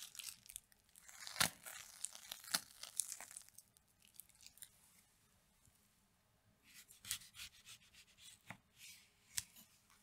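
Crisp crackling and crunching of a waffle cone being handled on a cake as cream is piped into it, with the sharpest snap about a second and a half in. After a short quiet gap, a knife cuts through a dragon fruit on a wooden board, with a few sharp crisp clicks as the blade goes through the skin and flesh.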